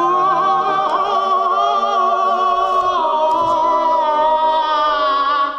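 A cappella choir singing one long, held 'aah' chord, the 'heavenly choir' reveal sound effect. The top note steps down about halfway through, and the chord cuts off abruptly at the end.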